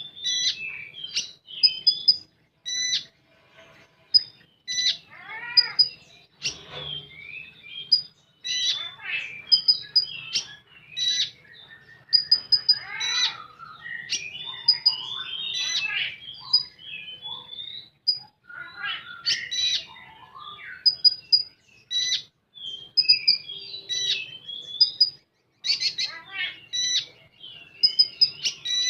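Konin songbird singing a continuous, varied song: bright short whistles repeated again and again, mixed with quick chattering trills and mimicked calls of other birds, with only brief pauses.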